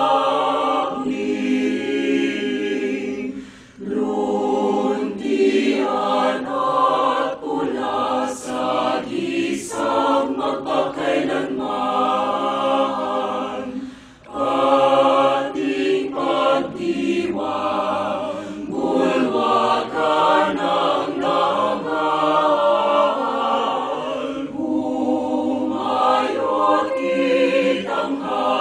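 A choir singing a slow song in several voices, with short breaths between phrases.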